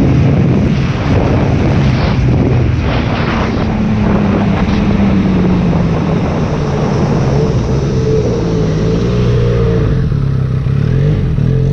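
Benelli Leoncino 500's parallel-twin engine running under way, with wind noise on the microphone; the engine note falls slowly through the middle as the bike eases off.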